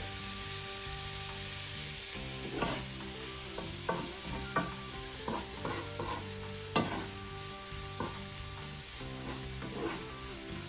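Diced onion, garlic and red and green bell peppers sizzling in hot oil in a frying pan, stirred with a wooden spatula that scrapes and knocks against the pan at irregular moments.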